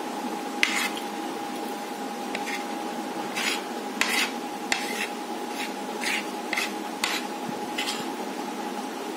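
A metal spoon scraping across a plate in about ten short, irregular scrapes as food is scooped up, over a steady background hum.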